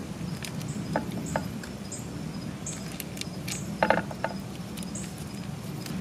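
A table knife clinking and scraping against a ceramic plate while butter is spread onto grilled T-bone steaks: a few light clicks about a second in and a sharper ringing clink about four seconds in, over a steady low background noise.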